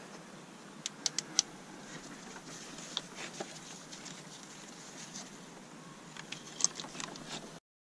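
Light clicks and taps of small parts and hand tools being handled over a faint steady hiss, with a quick cluster of sharp clicks about a second in and a few more near the end; the sound cuts off abruptly just before the end.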